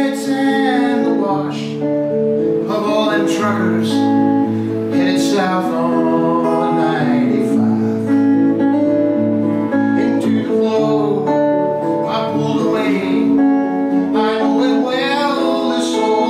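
Background music led by acoustic guitar, held chords changing about once a second with a moving melody line above.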